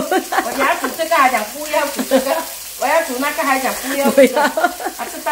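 Sambal chili paste sizzling in a wok as it is stirred with a wooden spatula, with a woman's voice talking over it.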